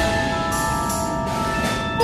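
Background music with held notes, new ones entering about half a second in and again past one second.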